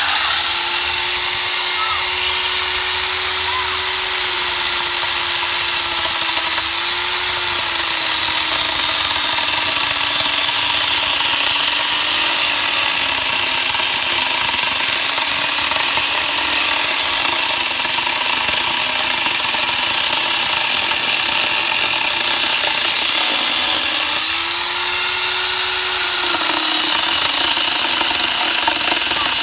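Angle grinder driving a chainsaw adapter attachment, sawing through fairly hard wood. The motor's whine slowly sinks in pitch under the load of the cut, rises briefly near the end, then drops again.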